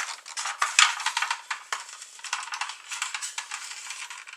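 Hard plastic parts of a 1983 G.I. Joe Skystriker toy jet clicking and scraping together as a stubborn piece is pushed and worked into place. It is a quick, irregular run of small clicks that thins out toward the end.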